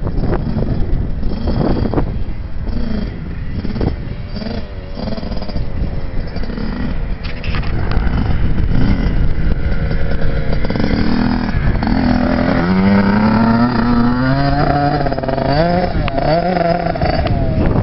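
Kawasaki 65 two-stroke dirt bike engine running on the throttle, fainter at first, then louder in the second half with its pitch climbing, dropping at a gear change and climbing again.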